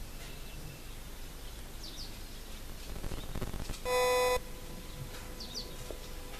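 A single short electronic beep, about half a second long, about four seconds in, over a low background hiss with a few faint high chirps.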